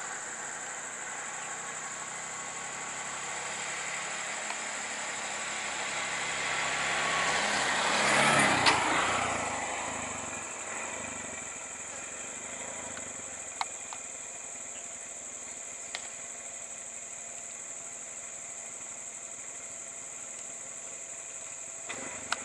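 Stopped road vehicles idling, with a steady high-pitched drone over them. About eight seconds in, a broad rush of vehicle noise swells and fades, like a vehicle passing close, and a few sharp clicks follow later.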